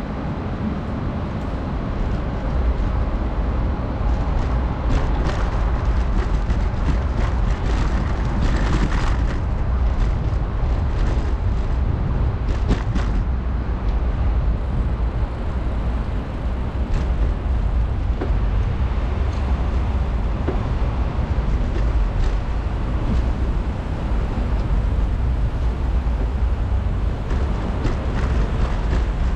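Wind buffeting an action camera's microphone while cycling: a loud, steady low rumble with a rushing haze over it. A few short ticks and knocks come between about five and thirteen seconds in.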